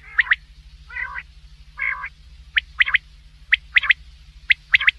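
Male common quail singing its sharp three-note 'wet-my-lips' phrase four times, with two lower, rougher calls between the first and second phrases.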